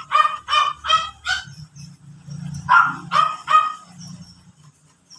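An animal calling in short, pitched calls, about three a second: a run of five at the start, then three more about two and a half seconds in.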